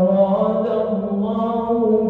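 An imam's voice chanting Quran recitation in a long, drawn-out melodic phrase, holding each note with only small steps in pitch.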